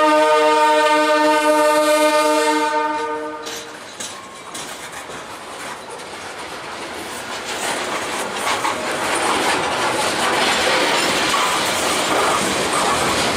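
Locomotive air horn sounding a chord of several steady tones, cutting off about three and a half seconds in. The train's running noise and wheels clicking over the rail joints then build up and stay loud as it passes.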